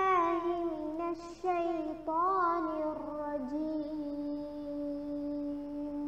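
A girl's voice reciting the Quran in a melodic chant (tilawah), with ornamented turns of pitch early on. About halfway through she settles into one long held note.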